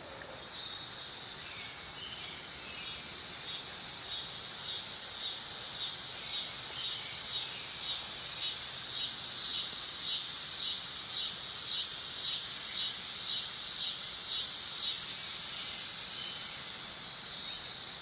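Dog-day cicada (Neotibicen canicularis) singing: a high, pulsing buzz that swells steadily louder, then fades away over the last few seconds.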